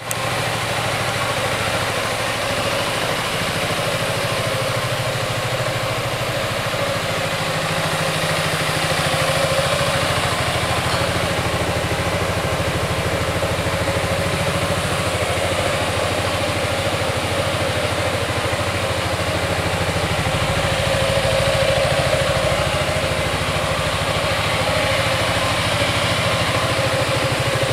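2019 Yamaha XMAX scooter's single-cylinder four-stroke engine idling steadily.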